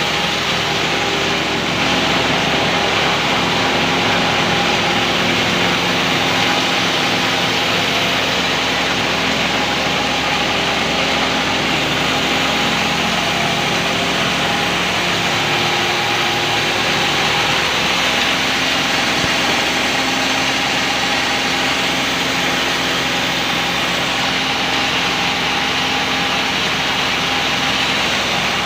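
Layer poultry farm feeding machine running steadily, a continuous motor hum with several steady tones over a constant mechanical rushing noise.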